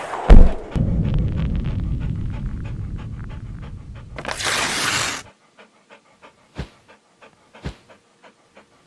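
Animated logo sting built from sound effects: a sharp hit, then a dog panting, a whoosh, and soft clock-like ticking about three times a second with a couple of deeper thumps.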